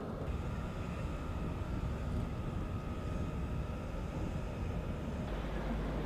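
Steady low rumble of an Arleigh Burke-class destroyer's machinery, with wind on the microphone and a faint steady whine over it.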